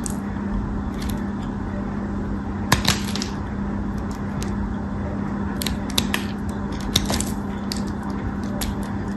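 Craft knife cutting into a dry, crumbly bar of soap: crisp crackling cuts and crumbling flakes at irregular moments, the sharpest about three seconds in and around six to seven seconds in, over a steady low hum.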